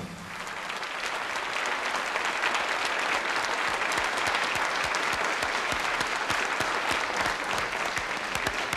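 Audience applauding, the clapping building over the first couple of seconds and then holding steady.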